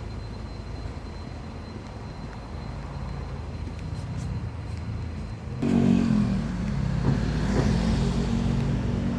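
Low rumble of road traffic. About five and a half seconds in, a louder motor vehicle comes close with a steady engine note and stays loud to the end.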